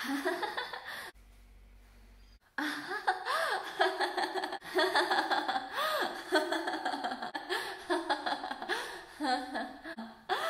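A woman laughing hard and long. There is a short laugh at the start, then after a brief lull the laughter carries on without stopping from about two and a half seconds in.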